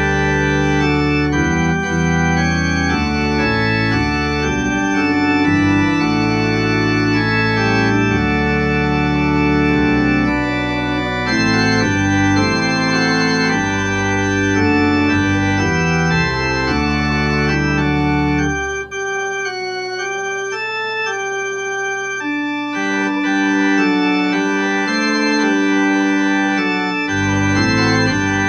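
Church organ playing a hymn in sustained chords. About two-thirds of the way in, the deep bass notes drop out for several seconds, then come back near the end.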